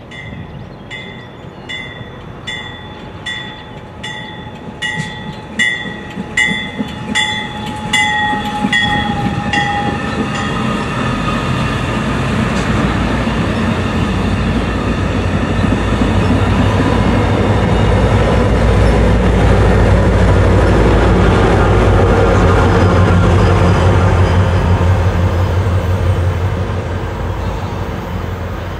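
MARC push-pull commuter train approaching with its bell ringing in steady strokes, a little under two a second, louder as it nears. The bell stops about a third of the way in. The train then passes close with rising rail rumble, and the trailing diesel locomotives' engines are loudest about two-thirds of the way through.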